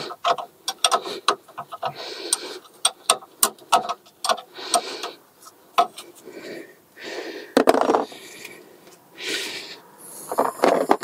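A spanner clicking and clinking on a brake caliper guide bolt as the bolt is worked loose, with many irregular sharp metal ticks. Heavy breathing swells in and out every couple of seconds.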